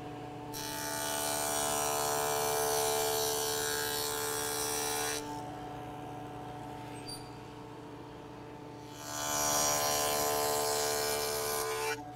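Table saw with a dado blade running steadily, cutting notches into walnut blanks twice: a long cut starting about half a second in and a shorter one about nine seconds in. The motor whines on its own between the cuts.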